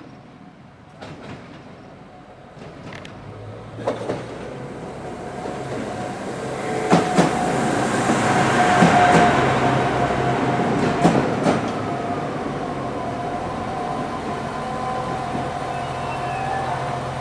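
SA136 diesel railcar pulling into a station platform, its engine running and its wheels clicking over rail joints. The sound grows louder until the train draws alongside about eight seconds in, then holds steady, with a thin steady whine throughout.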